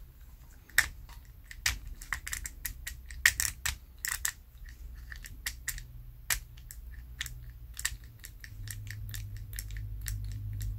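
Irregular sharp clicks and small knocks of a Daiso spinning reel's plastic body and parts being handled and worked by hand during disassembly.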